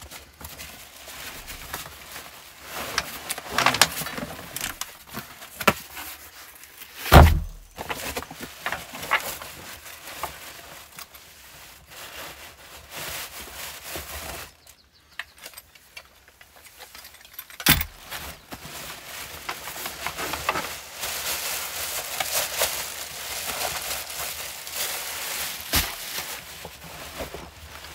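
Handling noises as a backpack is unpacked: scattered rustles and knocks, two sharp thuds of items set down on wooden boards, and a plastic bag crinkling in the later part.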